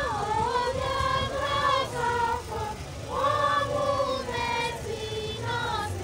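A girls' choir singing a hymn in unison, with notes held and gliding between pitches and a short breath between phrases about two and a half seconds in.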